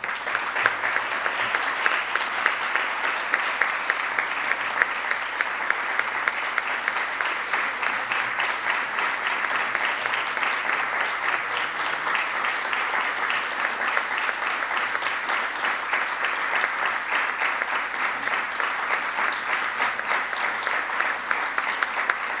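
Audience applauding: dense, even clapping that starts suddenly and holds steady.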